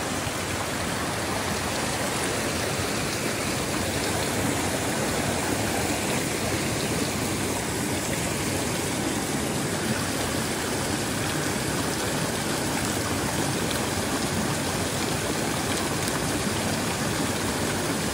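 Fast water rushing along a narrow stream channel, a steady unbroken rush.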